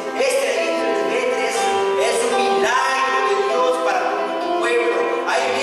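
Music with a voice singing long held notes over accompaniment.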